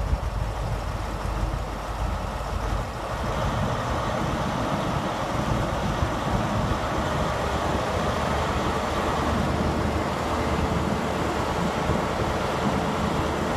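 Class 43 HST diesel power car running with its MTU engine, getting louder about three seconds in as the train starts to move off, then holding a steady, heavy note.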